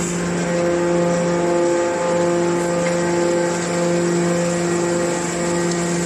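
Hydraulic metal scrap baler running, its hydraulic power unit giving a steady hum with a few even overtones while the press compacts a load of metal turnings.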